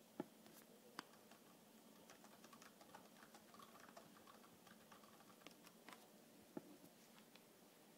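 Faint typing on a computer keyboard: scattered soft key clicks over a quiet background, with a few sharper taps.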